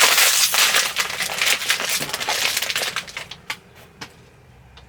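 Plastic mystery-mini bag crinkling as it is torn open at its notch and handled. The crinkling stops about three seconds in, followed by a few light clicks.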